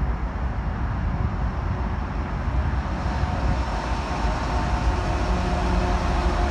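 Union Pacific diesel freight locomotives rumbling steadily as they approach and pass, getting a little louder toward the end. A steady higher-pitched whine joins the rumble about halfway through as the lead unit comes by.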